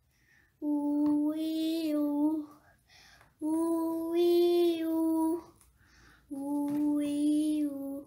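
A young girl singing a vocal warm-up exercise, holding an 'oo' vowel on one steady pitch three times, each note about two seconds long with short pauses for breath between.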